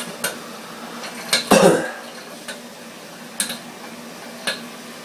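Small metal containers clinking and knocking as they are handled: about six sharp clinks, the loudest a longer clatter about one and a half seconds in.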